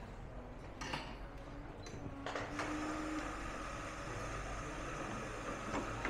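Espresso machine running: a low hum that climbs slightly in pitch for a couple of seconds, a higher steady tone that comes in about two seconds in, and a few sharp clicks.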